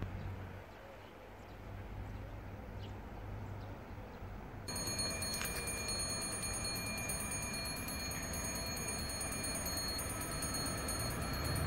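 Railway warning bell ringing steadily, starting abruptly about five seconds in, as a train approaches the station. A low rumble from the approaching train grows near the end.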